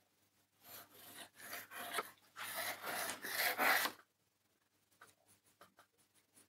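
A pencil scratching on plywood as a line is marked along a metal rule: a few rasping strokes over about three seconds, stopping about four seconds in.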